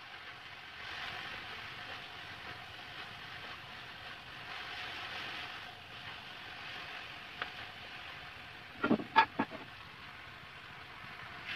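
Water spinach frying in oil in a steel wok: a steady sizzle, with a click about seven seconds in and a quick cluster of sharp knocks about nine seconds in, as the greens are turned with chopsticks against the pan.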